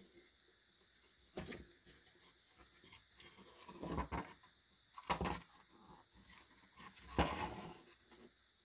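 Handling noise from a GE refrigerator control circuit board being turned over in the hands: four short rustling knocks, a second or two apart, the last the loudest.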